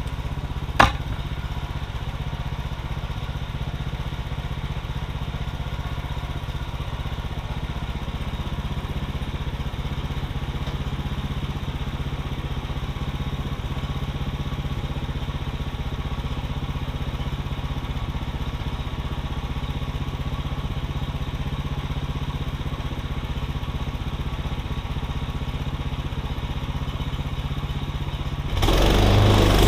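Portable bandsaw mill's gas engine idling steadily, with one sharp knock about a second in. Near the end the engine revs up and gets much louder.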